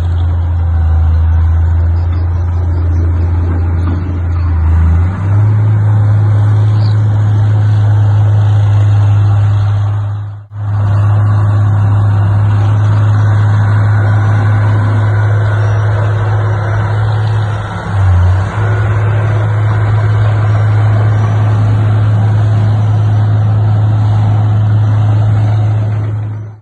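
Heavy diesel engine of earthmoving equipment running under load with a steady low drone. Its pitch steps up about five seconds in, and the sound breaks off briefly twice.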